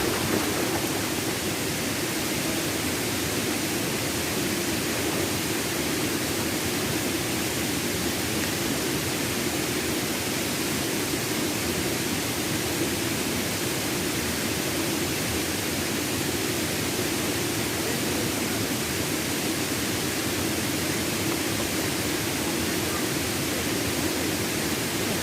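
Steady, even rush of river water pouring over a waterfall.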